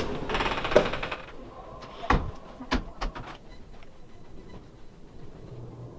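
Hotel room door being pushed open and let go, with several sharp clicks and knocks from its handle and latch, about four in the first three seconds.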